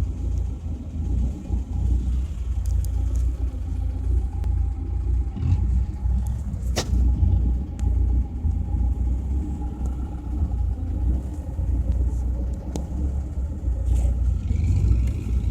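Vehicle driving off-road, a heavy uneven low rumble throughout, with a sharp knock about seven seconds in and a few lighter clicks.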